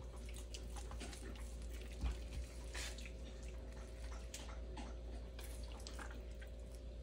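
Hands rubbing softened butter over the skin of a raw turkey: faint, irregular wet squishes and small smacks, over a steady low hum.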